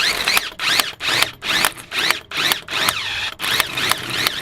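Impact gun tightening a bolt on the front hub, run in short pulses about two and a half times a second, its motor whine rising and falling with each pulse over the rattle of the hammering.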